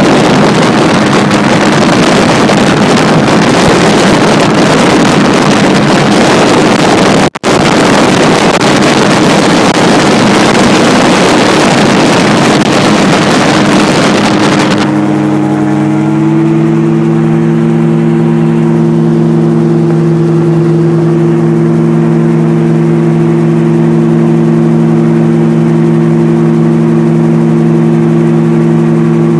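RAF 2000 GTX SE gyroplane's engine and propeller running steadily in flight, under heavy wind rush on the microphone. About halfway through the wind noise drops away abruptly, leaving a steady, even engine drone; there is a brief dropout about seven seconds in.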